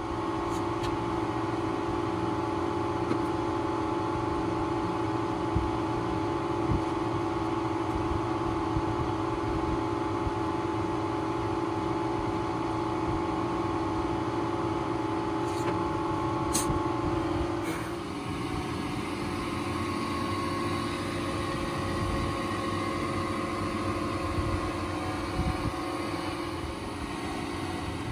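A steady mechanical hum with several held tones, broken by a couple of sharp clicks about two-thirds of the way in.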